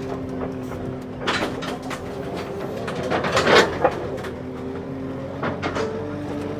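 Heavy-equipment diesel engine running steadily. Bursts of metal clanking and rattling come about a second in, loudest around the middle, and again near the end.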